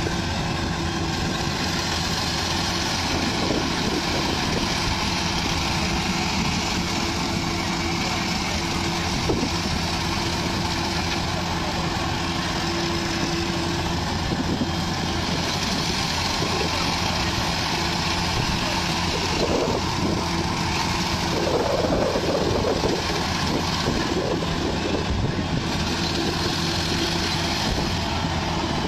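Tractor engine running steadily under a constant, unchanging load.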